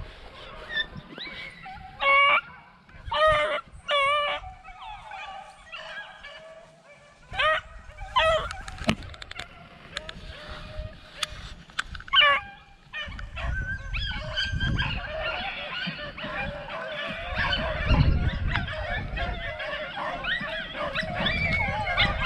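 Pack of rabbit beagles baying: separate drawn-out bawls at first, then from about halfway through many dogs giving tongue at once in a continuous chorus, the sound of hounds running a rabbit's scent.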